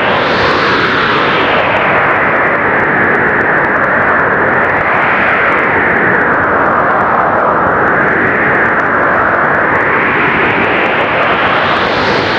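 Blizzard wind blowing hard and without a break, its hiss rising in pitch and falling again as gusts swell and ease every few seconds.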